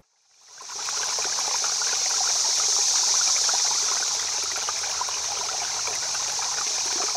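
Steady rush and trickle of running stream water, fading in over the first second.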